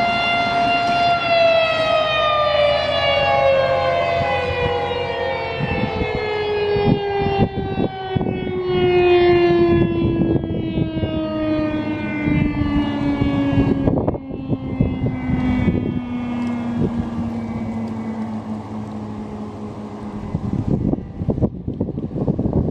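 Federal Signal STH-10 outdoor warning siren ending its steady alert tone: about a second in the held tone starts a long wind-down, its pitch sliding slowly lower and fading over some twenty seconds as the siren's rotor coasts to a stop.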